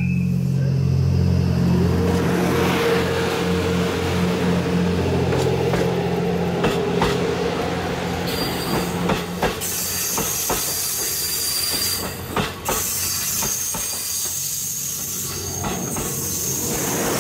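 87-series diesel sleeper train passing close: a low diesel engine drone and a steady tone in the first half, then a run of sharp wheel clicks over the rail joints with rising hiss as the cars go by.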